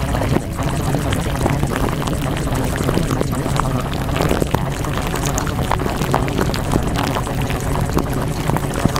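Steady rushing, water-like noise with many small crackles and pops throughout, the masking sound track of a subliminal audio.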